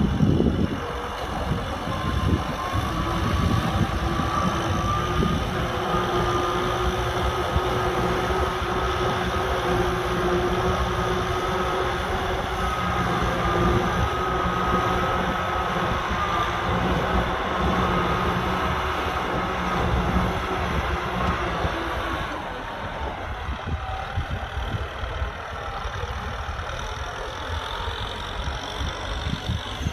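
Kubota M6040SU tractor's diesel engine running steadily under load while plowing, with a high whine held over the engine note. The sound drops somewhat about two-thirds of the way through.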